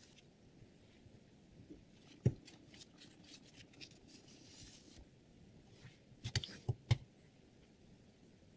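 Handling noise at a clamp-type knife sharpener: a single click about two seconds in, paper towel rustling against the blade, then a quick run of sharp clicks and knocks about two-thirds of the way through, the loudest sounds here, as a diamond sharpening plate is picked up.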